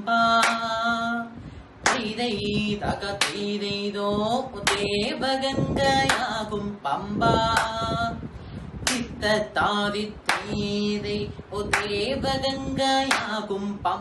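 A man's voice singing in a steady rhythm, with sharp hand claps keeping the beat about every two-thirds of a second.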